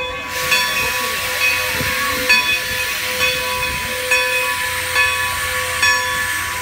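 Steam locomotive No. 90 venting steam with a loud, steady hiss that starts about half a second in, while a bell strikes about once a second.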